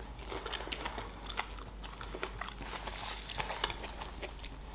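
Close-miked chewing of a chocolate-dipped strawberry: soft, wet mouth clicks and smacks scattered throughout.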